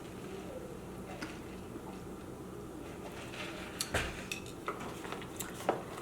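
Eating sounds: scattered light clicks and crackles of food and its packaging being handled and chewed, more of them in the second half, over a faint steady hum.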